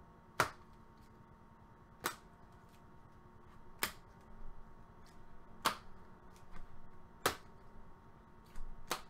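Rigid plastic card toploaders set down one at a time onto stacks on a wooden table: six sharp plastic clacks, one about every second and a half to two seconds, with softer clicks of cards shuffled in the hand between.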